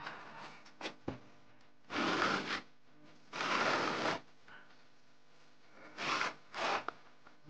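Four separate scraping strokes of a plastering hand tool rubbing across a mortar-covered wall, each under a second long; the two near the end come in quick succession.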